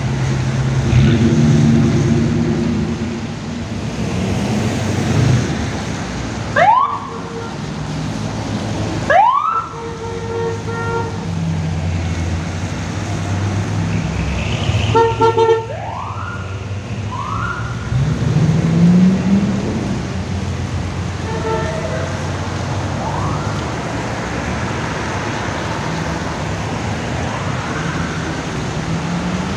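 A line of vintage cars driving past with their engines running. A siren gives about six short rising whoops, and car horns toot in short bursts, one near the middle pulsing rapidly.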